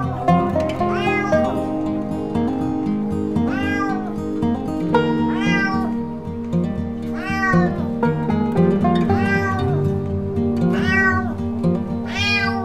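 Domestic cat meowing over and over, about seven drawn-out meows that each rise and then fall in pitch, over background music.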